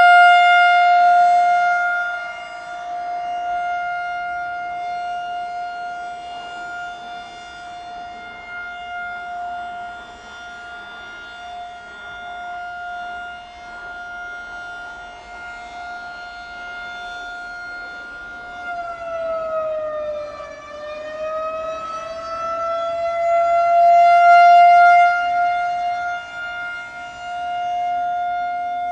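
Federal Signal 2001-SRN rotating electromechanical warning siren sounding its steady Alert tone. The tone swells loudest at the start and again about 25 s in as the turning horn sweeps past, fading between. Its pitch dips briefly about 19 seconds in and comes back up.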